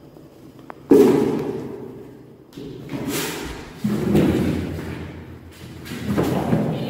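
Kittens play-fighting and scampering on a tiled floor, heard as four dull thumps, each trailing off over a second or so.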